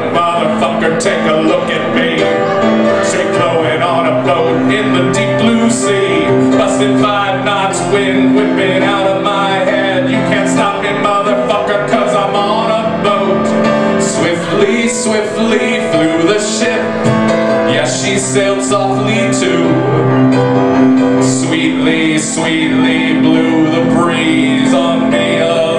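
Piano playing with a man singing over it, a live song performance with no breaks.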